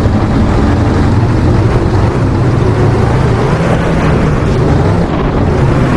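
Motor-driven water sprayer, such as a pressure washer, running steadily while washing mud off a toy: a low motor hum under hissing spray.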